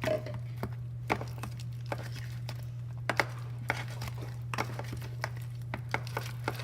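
Clear glue slime being worked with activator, making irregular sticky clicks and small pops, over a steady low hum.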